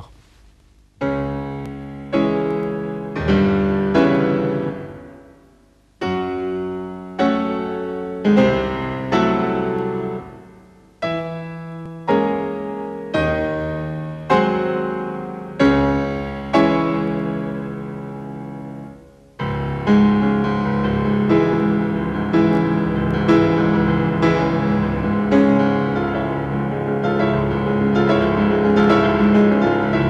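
Piano music for end credits: slow struck chords, each ringing and fading, about one a second. From about twenty seconds in, a fuller passage rings on without pause.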